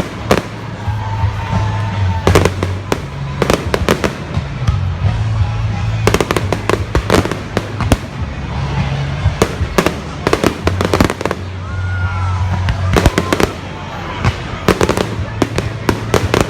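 Aerial fireworks display going off: repeated sharp bangs and crackles in clusters every second or two.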